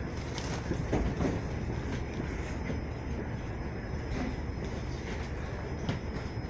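Suburban electric train heard from inside the carriage, a steady low rumble with scattered clicks and knocks as it moves off slowly from a station after the doors close.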